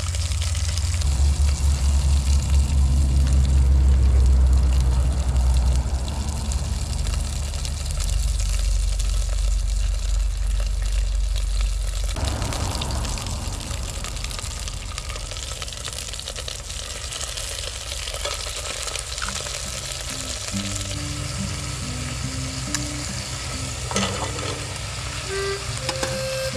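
Food frying and sizzling in a pan, with stirring. Background music with a simple stepwise melody comes in about twenty seconds in.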